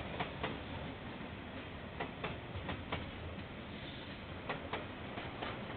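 Railway wagon wheels rolling slowly over a rail joint, clicking in pairs as each bogie's two axles cross it, over a steady noise haze from a security camera's microphone.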